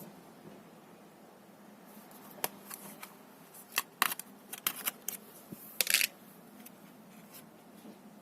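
A run of sharp clicks and clacks, about a dozen in the middle few seconds, ending in a short, longer rasp about six seconds in.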